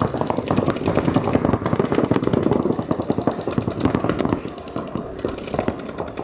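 Paintball markers firing in rapid strings, many shots a second, easing a little after about four seconds.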